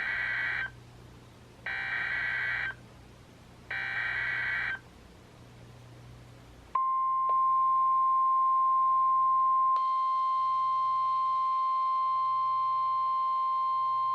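Emergency Alert System SAME header sent three times by NOAA Weather Radio, three raspy digital data bursts about a second each, heralding a Special Marine Warning. About seven seconds in, the steady 1050 Hz Warning Alarm Tone begins, and about three seconds later more steady high tones join it.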